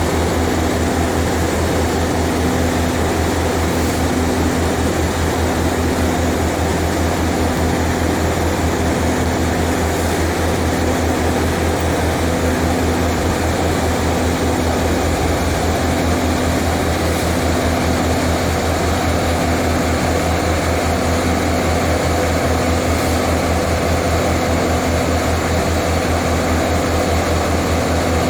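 Large engine running steadily at constant speed, with a low, even throb.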